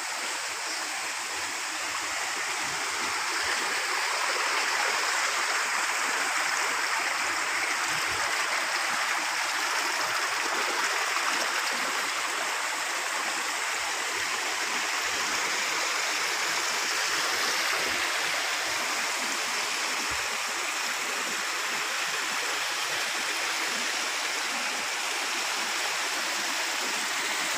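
Rainwater runoff rushing steadily, a continuous even wash of flowing water.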